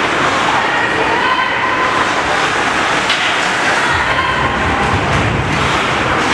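Arena crowd noise during a ringette game: a steady din with faint voices in it, and a low rumble that swells about two-thirds of the way through.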